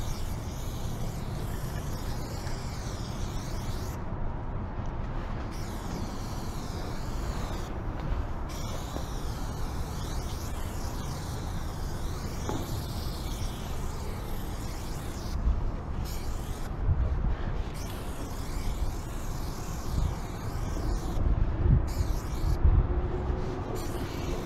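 Aerosol spray paint can hissing in long strokes, cut by short pauses where the nozzle is let go, over a low rumble that swells in bursts near the end.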